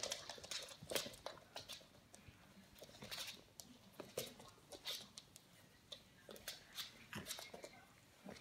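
Clumber Spaniel puppies' claws clicking and scrabbling on a wooden floor as they run and play-wrestle, in quick irregular taps and scrapes.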